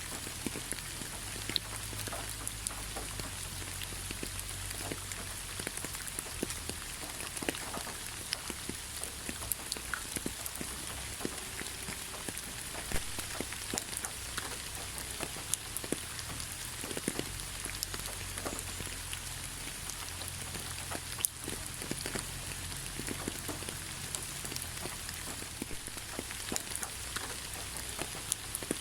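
Steady rain falling, an even hiss with many small scattered drop clicks, over a faint low rumble.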